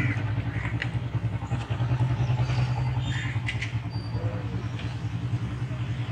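Steady low drone of a running engine, with scattered faint voices and clatter over it.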